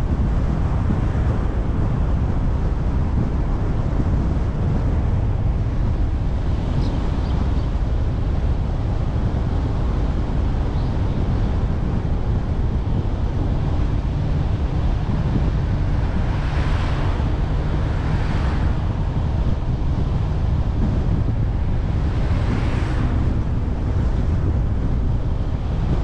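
Wind buffeting the microphone of a camera on a moving car, a steady low rumble mixed with road noise, with a few brief hissing swells about two-thirds of the way through.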